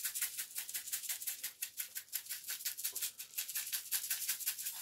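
Coarse sea salt rattling inside a small container as it is shaken out into a palm, a quick even run of about seven or eight shakes a second that stops near the end.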